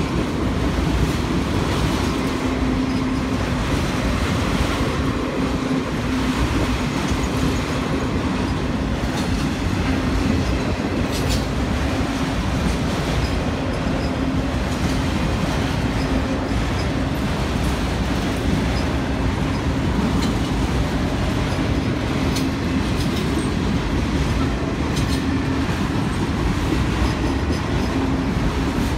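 A CSX freight train of autorack cars rolling past: steady rumble and clatter of wheels on the rails, with a steady low hum and occasional sharp clicks.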